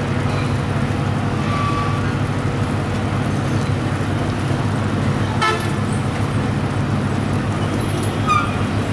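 Steady low drone of heavy vehicle engines, with short horn toots now and then, the sharpest about five and a half seconds in.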